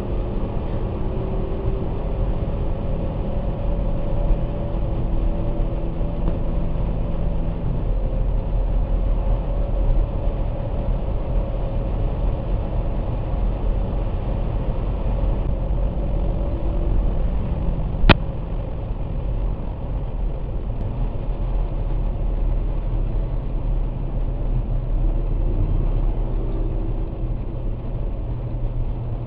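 Mercedes-Benz SLS AMG's 6.2-litre V8 idling steadily, its pitch shifting only slightly. A single sharp click about eighteen seconds in.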